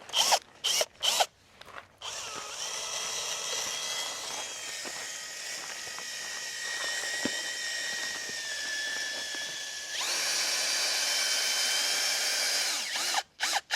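Cordless drill driving a 10-inch timber screw into hard road-base and gravel ground to anchor a garden border. A few short trigger blips, then a long steady whine whose pitch sags slightly under load, steps up higher about ten seconds in, and cuts off near the end, followed by a couple more short blips.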